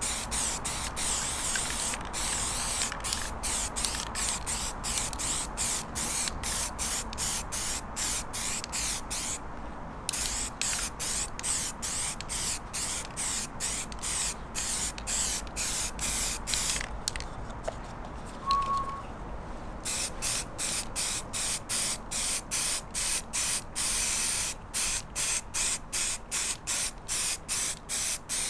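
Aerosol can of grey primer spraying in short, rapid bursts, a hiss broken two or three times a second, laying down a light first coat on plastic grilles. The spraying pauses briefly about a third of the way in, and for a few seconds about two-thirds of the way in.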